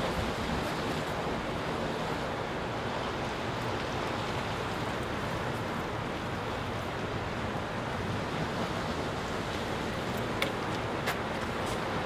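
Sea surf washing against a rocky shore, a steady rushing noise, with two faint clicks near the end.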